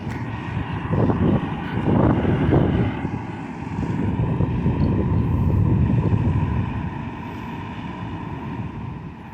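Low rumble of road traffic, swelling as vehicles go by and easing off near the end; no siren or air horn is sounding.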